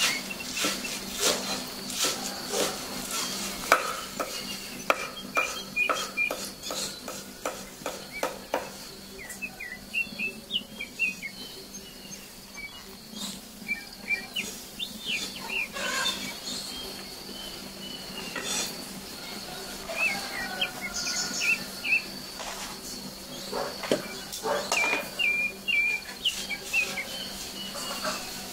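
Hard objects clinking and clattering in short runs, densest in the first nine seconds and again near the end, like cookware or shells being handled. Small birds chirp throughout over a steady high insect buzz.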